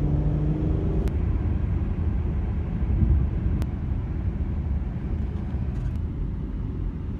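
Car driving: a steady low rumble of engine and road noise. A few engine tones are audible at the start and fade within the first second.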